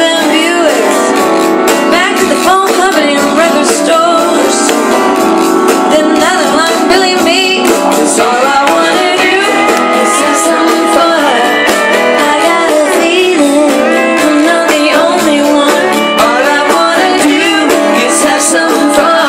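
Live band music played through a concert sound system: a woman singing over guitar and drums. It sounds thin, with little bass.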